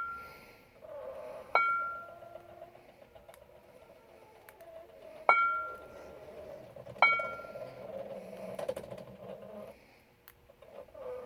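Three sharp metallic clinks, each ringing briefly with a clear bell-like tone, from the metal hardware of a weighted padlock rig knocking together while the lock is being picked, over faint handling and rustling.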